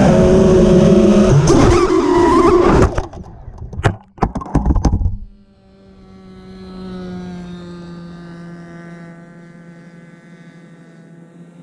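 Radio-controlled model aircraft at a takeoff: loud, close power-up of its motor for about three seconds, a few sharp knocks, then a steady high drone that swells and slowly fades as the model climbs away.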